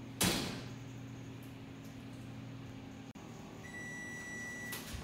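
An oven door shuts with a loud thump over a steady low hum. After a break, a high electronic beep tone, the oven's timer, holds for about a second near the end.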